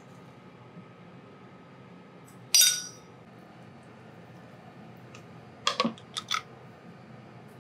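Cookware clinking: one sharp clink that rings briefly, then a few quick lighter clinks as a glass lid is set down on a frying pan.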